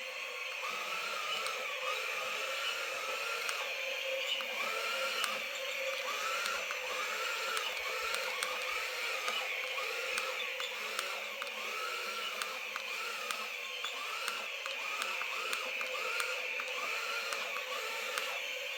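Toy RC battle tank running: a steady small-motor and gearbox whine with a short rise-and-fall tone repeating about once a second, and light ticks.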